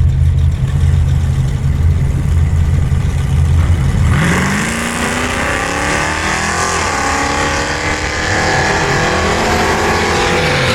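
Car engine running low and steady, then from about four seconds in accelerating hard on a drag strip pass, its pitch climbing with a wide rush of tyre and wind noise, until it cuts off abruptly near the end.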